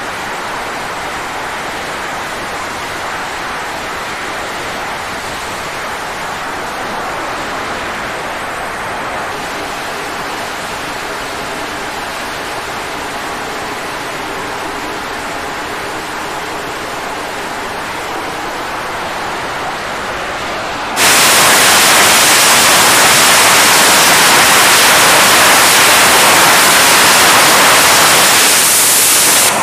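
F/A-18 Super Hornet jet engines running on a carrier flight deck: a steady, loud rush of turbine noise. About two-thirds of the way through it jumps suddenly much louder, as a jet on the catapult runs up to full power for launch.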